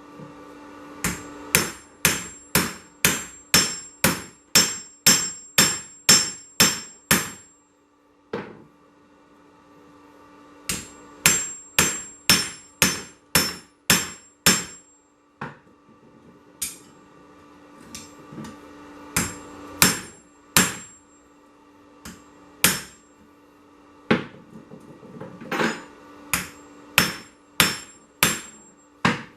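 Hand hammer striking hot 1085 carbon steel on an anvil, at about two ringing blows a second in two steady runs, then in slower, scattered blows. A steady low hum runs beneath.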